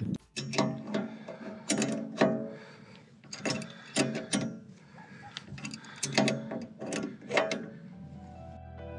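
Metal hand tool working a screw-in ground anchor (hurricane tie-down): irregular ratcheting clicks and clanks, a couple a second, each ringing briefly. Background music comes up near the end.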